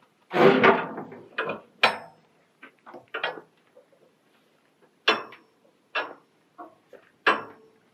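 Steel shipping-container doors and their locking bars being worked open: a loud metal clatter about half a second in, then a few sharp metallic clanks, some with a short ring.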